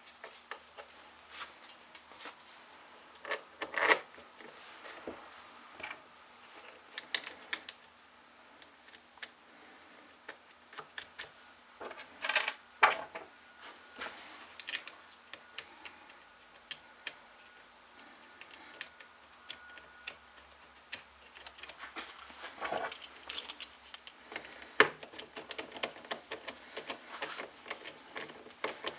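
Irregular clicks, taps and light knocks of small chainsaw parts and hand tools being handled on a workbench during reassembly of a Stihl chainsaw, with a few louder knocks about four and twelve seconds in and a busier run of clicks near the end.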